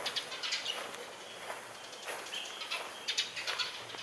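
Small birds chirping in quick bursts of high notes, with a short held whistle about two seconds in.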